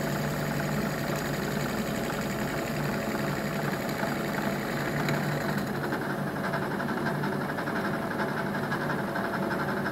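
36-grit bowl grinding disc spinning in a milling machine spindle, grinding the face of a metal block held in a vise: a steady machine run with a grinding hiss that thins out about six seconds in.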